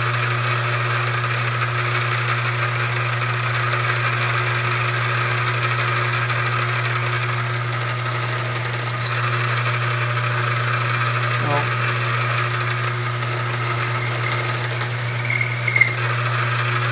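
Milling machine spindle running with a steady hum while a two-flute end mill is plunged deep into aluminum in pecks to clear the chips. The cutter squeals at times: a high squeal sliding down in pitch about halfway through, and shorter squeals near the end.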